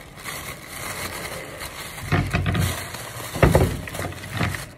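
Handling noise close to the microphone: rubbing and rustling with dull bumps, the loudest about halfway through and two more around two seconds in and near the end.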